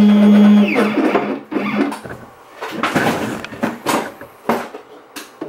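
Sienci Mill One desktop CNC milling aluminum: the router spindle holds a steady tone while the stepper motors whine, rising and falling in pitch as the axes speed up and slow down. The machine stops about two seconds in, and a few scattered light knocks and clicks follow.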